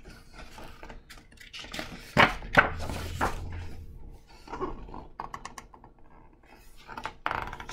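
Pages of a picture book being turned and the book handled: paper rustling with scattered light taps and clicks, the busiest rustle about two to three seconds in.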